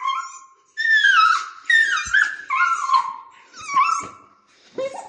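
Small dog whining and yelping in a string of high, pitch-bending cries, mostly falling, one after another with short breaks: an excited greeting of its owner coming home.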